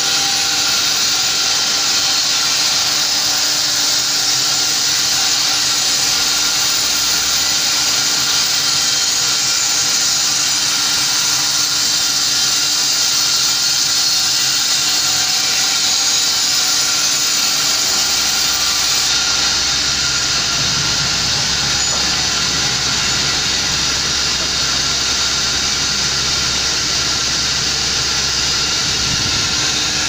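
Log band sawmill and its dust-extraction blower running, a loud steady high hiss. About eighteen seconds in, a deeper rumble joins it.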